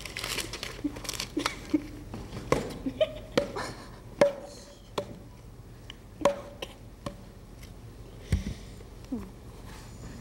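Stage props being handled: scattered sharp knocks and clacks with paper rustling, some knocks ringing briefly.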